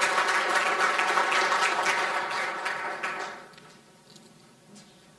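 Audience applauding, a dense patter of clapping that dies away about three and a half seconds in.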